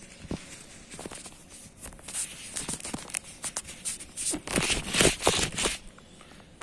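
Handling noise of a fingerless fitness glove being pulled on and adjusted: irregular rustling, scraping and rasping, with the densest and loudest rasps about four and a half to six seconds in.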